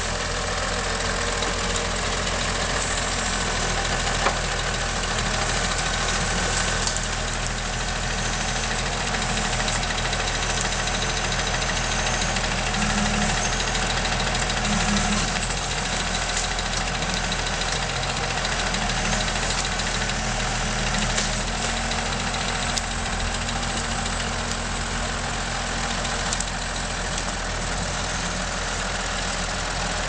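John Deere 3650 tractor's diesel engine running steadily while it drives a timber crane loading logs, with a few knocks over it.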